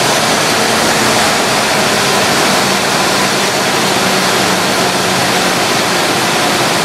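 Pickup truck engine running steadily on woodgas at raised speed, with no carburetor, only a plastic cover on the intake. It is a loud, even rush of noise with a faint steady hum underneath.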